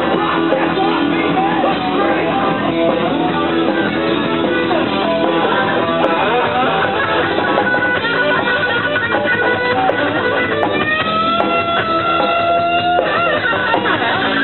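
Punk rock band playing live through amplifiers, an instrumental passage led by distorted electric guitar with no vocals. Near the end the guitar holds a few sustained, bending notes over the band.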